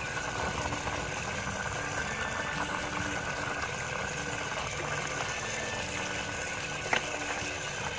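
A stream of water pours over a plastic toy excavator held in the hand and splashes onto a wet floor, a steady rushing splash, with one short click about seven seconds in.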